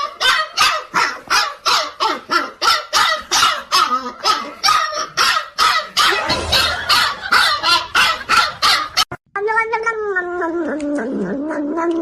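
A dog barking rapidly and without a break, about three barks a second. Just after nine seconds in it cuts off suddenly, and a cat starts a long, wavering yowl.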